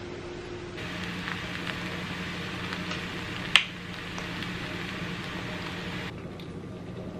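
Sliced mushrooms sizzling and crackling in hot butter in a skillet, with one sharp click about halfway through. Near the end the sizzling quiets as heavy cream is poured into the pan.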